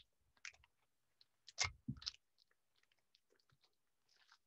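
Faint crinkling of wrapping foil being handled and gathered around a bottle. It comes in a few short crackles, the loudest about a second and a half in, with near silence between.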